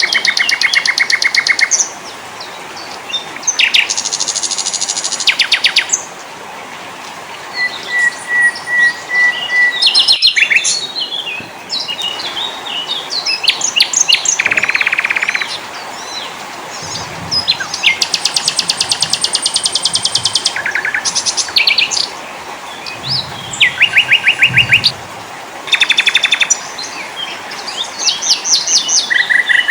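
Several small songbirds singing and calling together: rapid trills and quick repeated chirps overlapping one another, over a steady hiss.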